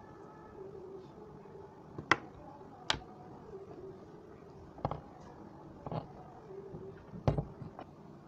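Handling noise from fitting a small toy DC motor, its wires and plastic fan blade together: about six sharp clicks and knocks spread over several seconds, the loudest about two seconds in and near the end. The motor is not running.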